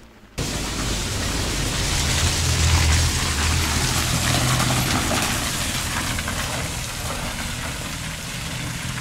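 A motor vehicle's engine running close by with a low hum under a broad rush of noise, loudest two to three seconds in and then easing off. It starts and cuts off suddenly.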